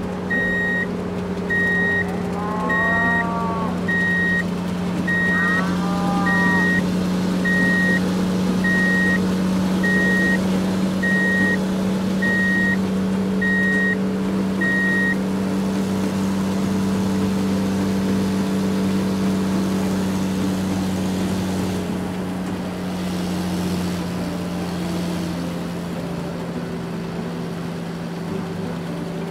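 Steady truck engine running with a high reversing beep sounding at an even pace, the beeping stopping about halfway through; two short cries come through early on.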